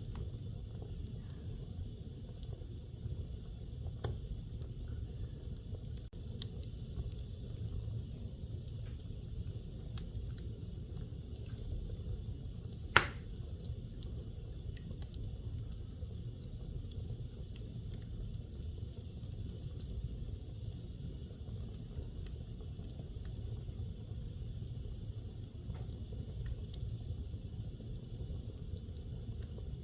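Wood fire burning in a fireplace: a steady low rush of flames with faint scattered crackles, and one sharp, loud pop of burning wood about thirteen seconds in.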